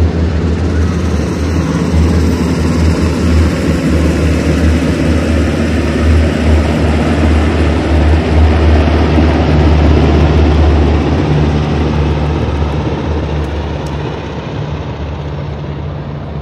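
Two Sikorsky UH-60 Black Hawk helicopters flying low overhead: a deep, rapidly pulsing rotor beat over broad turbine and blade noise. It grows loudest about eight to ten seconds in, then fades steadily as they move away.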